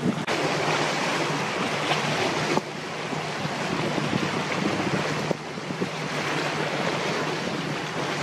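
Wind on the microphone over sea waves, a steady noise with a low hum underneath; the sound changes abruptly at edits about a quarter second in, and at about two and a half and five seconds.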